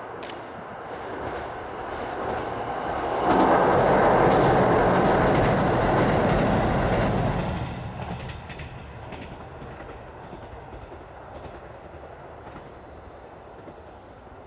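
KiHa 85 series diesel multiple unit passing by: the engines and wheels on the rails grow louder over the first three seconds, are loudest for about four seconds, then fade away.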